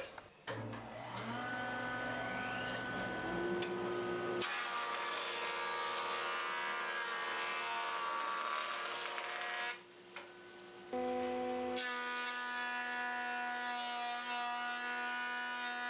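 Woodworking machines in a run of edited shots: a motor spins up with a rising whine, then a jointer and a benchtop thickness planer run with a steady whine and the hiss of their knives cutting rough cherry boards. The sound changes abruptly several times at the cuts.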